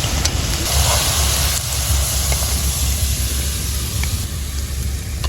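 Pakoras frying in hot oil, a steady sizzling hiss, over a steady low rumble.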